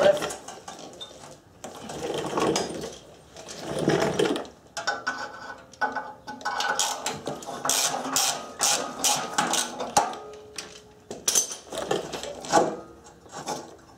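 Ratchet wrench clicking in quick runs as the last exhaust manifold fastener is backed off, with some short metallic clinks from the tool and exhaust pipe.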